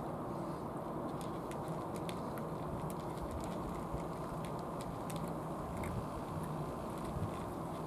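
Cats eating wet food from small plastic bowls: faint scattered chewing and licking clicks over a steady low rushing background noise.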